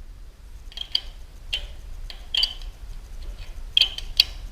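Scattered sharp metallic clicks, about seven or eight at uneven intervals, from a wrench working the chain-tensioning nut on a garage door opener's rail as the chain is tightened. The loudest clicks come near the end.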